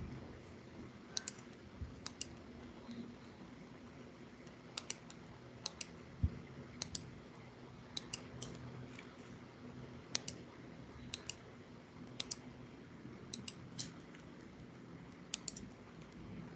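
Computer clicks, mostly in quick pairs or threes and about a second or two apart, over a faint steady hum. A soft low thump about six seconds in.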